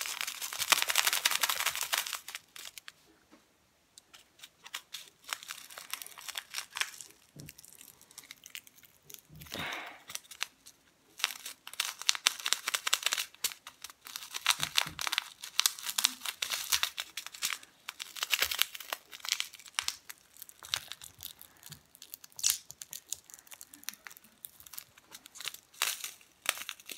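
Gold glitter slime stretched thin and pinched between fingertips, making irregular crackling and popping clicks in clusters, with short quieter pauses.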